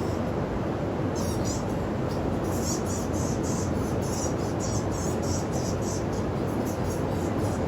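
Düden waterfall rushing in a steady roar, with bats squeaking in short high chirps over it, a few each second, from about a second in.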